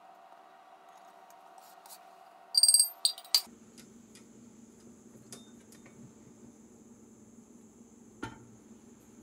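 Stainless steel measuring cups and spoon clattering together for about a second, with bright ringing metallic clinks. Near the end comes a single dull knock as the stand mixer's tilt head is lowered with the dough hook fitted. A faint steady hum lies underneath.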